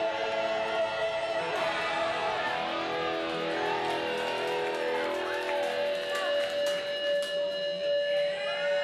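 Live music on an amplified acoustic guitar, with a long held note through the second half and a few sharp clicks a little past the middle.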